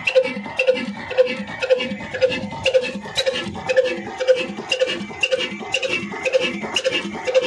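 Old single-cylinder horizontal diesel engine of the slow-running 'black engine' type, running steadily. Its valve gear and fuel pump click in an even beat of about two and a half strokes a second.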